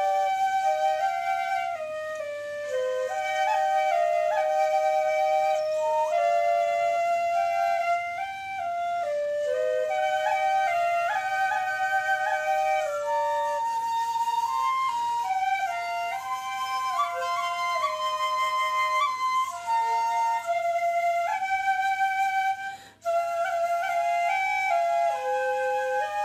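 Two shinobue, Japanese bamboo transverse flutes by the maker Hidekatsu pitched in 6-hon-choshi, playing a melody together in a breathy, pure tone. There is a brief break in the playing shortly before the end.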